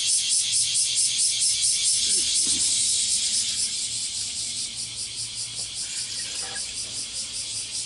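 Insects chirping in a steady chorus of rapid high pulses, about five a second, easing slightly after a few seconds.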